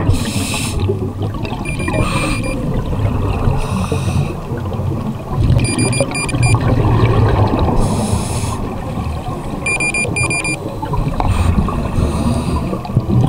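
Scuba diver breathing through a regulator underwater: a rush of exhaled bubbles about every four seconds over a steady low rumble. Three short runs of electronic beeps from dive computers come through between the breaths.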